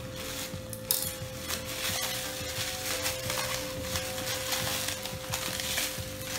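Bubble wrap and plastic packaging crinkling and crackling as it is pulled open by hand, with a sharp crackle about a second in. Faint background music with a steady held note runs underneath.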